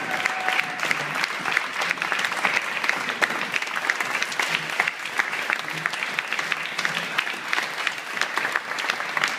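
A room of guests applauding: many hands clapping in a dense, steady patter that keeps going without a break.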